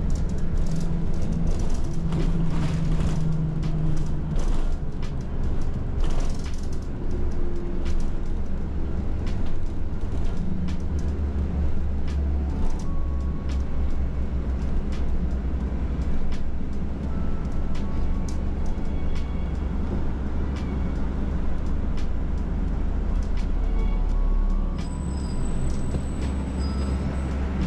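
A city bus in motion, heard from inside the passenger cabin: a steady low engine rumble with frequent rattles and knocks from the bus body.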